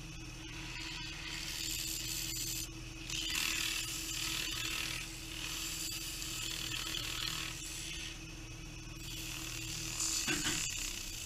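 Sandpaper rubbing against a wooden blank spinning on a wood lathe, in several passes of one to three seconds each, over the steady hum of the lathe's motor.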